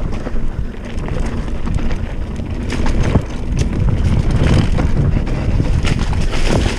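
Mountain bike rolling fast along a bumpy dirt and grass trail, heavy wind buffeting the microphone, with tyre noise and scattered knocks and rattles from the bike over the bumps.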